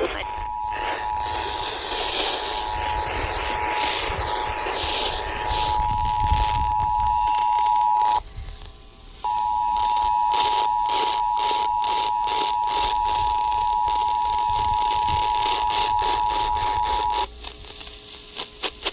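The two-tone Emergency Alert System attention signal, a steady dual-pitch alert tone received over a radio, marking the start of a new alert. It sounds for about eight seconds, breaks off for about a second, sounds for about eight seconds more, then stops. Radio static hisses and crackles behind it throughout.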